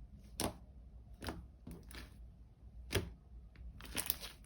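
Homemade glue slime being squeezed and worked by hand, making scattered sharp wet clicks and pops about every half second to second, with a quicker run of them near the end.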